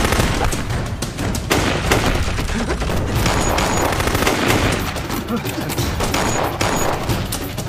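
Gunfire in a staged gunfight: many pistol and rifle shots in quick, irregular succession.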